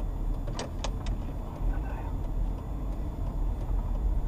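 Low engine and road rumble inside a car moving off slowly, with three quick clicks a little under a second in.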